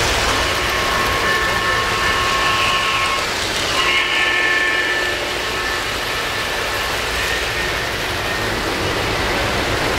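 Model O-gauge steam locomotive's whistle sounding twice: a long chord-like blast of about three seconds, then a shorter one after a brief break. Underneath is the steady rumble of model trains rolling on three-rail track.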